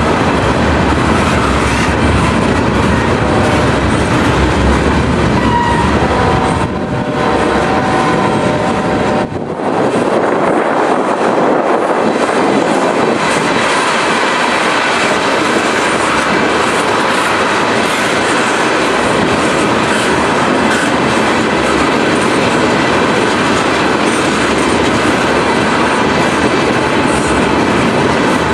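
Freight train rolling past close by, a loud steady rumble with its wheels clacking over the rail joints, dipping briefly twice about 7 and 9 seconds in.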